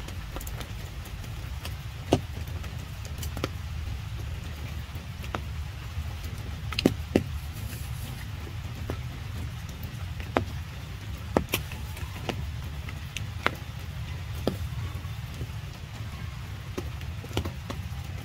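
Rain falling, with scattered sharp ticks of single drops striking close by at irregular intervals over a steady low rumble.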